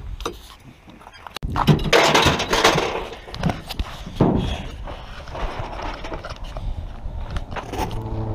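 A few sharp clicks, then from about a second and a half in, the uneven crunch and crackle of a boat trailer's tyres rolling over gravel, with stones popping under them.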